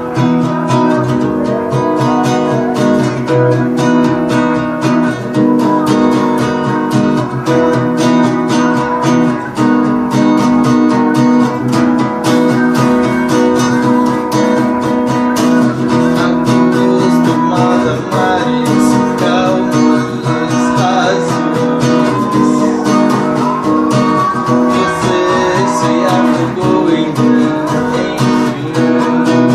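Acoustic guitar strummed in a steady rhythm, playing a song's chords.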